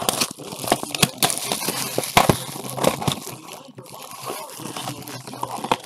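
Plastic wrapping on trading card packs crinkling and tearing as it is handled and opened by hand, with irregular crackles and a few sharper snaps.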